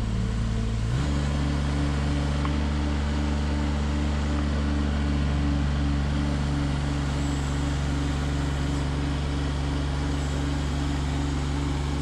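Excavator's diesel engine running steadily. Its note steps up slightly about a second in and then holds.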